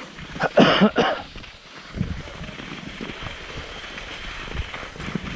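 Wind buffeting the camera microphone: a loud rush of noise about half a second to a second in, then a steady low rumble with irregular low thumps.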